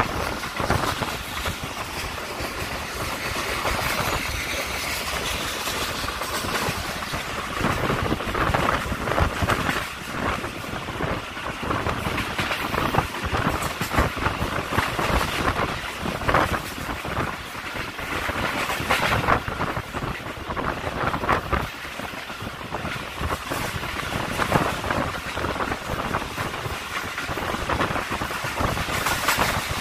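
Passenger train running at speed, heard from an open window: a steady rushing rumble of wheels on the rails, with irregular clattering knocks and air rushing past.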